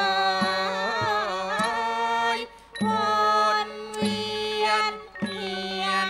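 Thai piphat ensemble playing khon dance music: a wavering lead melody that glides between held notes, over a low sustained drone and sharp drum strokes, with a short break about two and a half seconds in.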